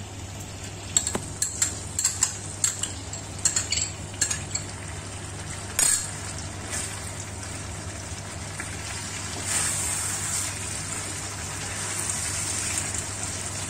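A metal spoon clinks and scrapes against a small bowl several times as tomato and green-chilli paste is emptied into a steel kadai, with one louder knock about six seconds in. Chicken sizzles in the kadai throughout, the sizzling growing louder from about ten seconds in as a wooden spatula stirs it into the paste.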